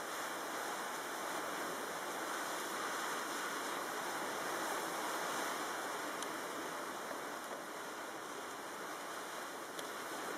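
Steady rushing of tropical-storm wind over choppy open water, with the wash of small waves blended in.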